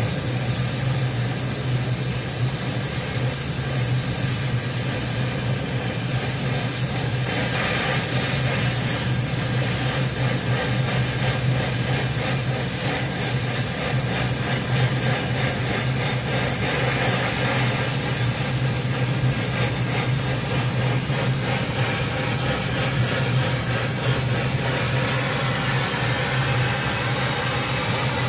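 Gas welding torch flame hissing steadily while a steel pipe is welded with filler rod, over a steady low hum.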